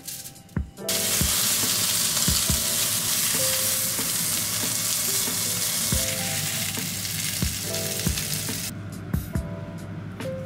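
Food sizzling in a hot frying pan, starting suddenly about a second in and cutting off near the end, over background music with a soft, regular beat.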